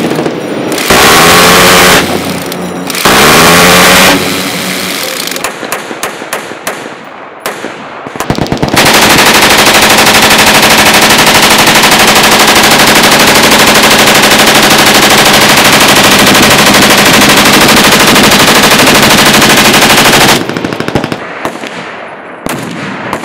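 Full-automatic machine-gun fire: two short buzzing minigun bursts near the start, then scattered separate shots, then one long unbroken burst of about eleven seconds. A few single shots follow near the end.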